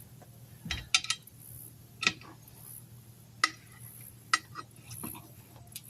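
Steel tyre irons clinking against a wheel rim as the tyre bead is levered off by hand: about seven sharp metallic clicks, irregularly spaced, over a low steady hum.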